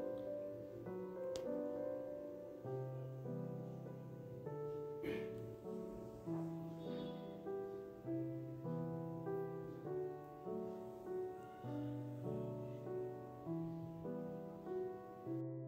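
Soft background piano music: a steady melody of single notes over a lower bass line.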